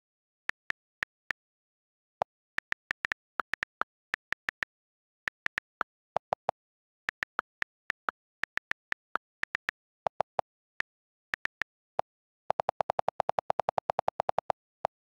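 iPad on-screen keyboard key clicks, recorded straight from the device: irregular single taps as letters are typed. Near the end comes a fast, even run of deeper clicks as the delete key is held down and the text is erased.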